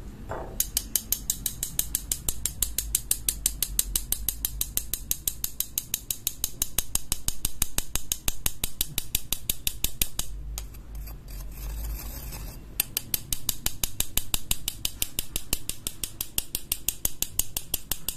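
Garlic powder being sifted through a fine stainless-steel mesh strainer with a metal spoon: a rapid, regular scratching tick, about six a second, pausing for a couple of seconds around the middle.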